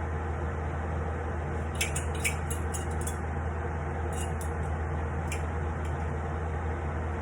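Light clicking of kitchen utensils against cookware, a quick cluster about two to three seconds in and two more clicks later, over a steady hum and rush.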